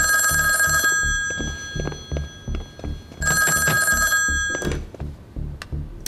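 Old black rotary desk telephone's bell ringing twice, each ring about a second long and about three seconds apart, over tense background music with a low pulsing beat. A few sharp clicks near the end.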